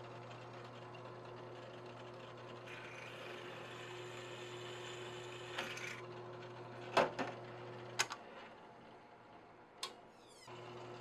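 Drill press motor running with a steady hum while the bit cuts through aluminium channel, the cutting hiss lasting from about three seconds in to six. A few sharp knocks follow as the part is handled, and the motor hum drops out about eight seconds in and comes back near the end.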